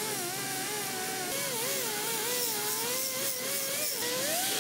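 A power tool whining in a repair shop, its pitch wavering up and down over a steady hiss.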